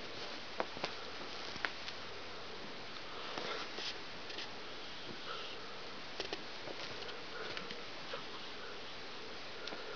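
Two cats play-fighting on a fluffy blanket: soft scuffling and rustling of paws and fur, with a few sharp clicks in the first couple of seconds, over a steady hiss.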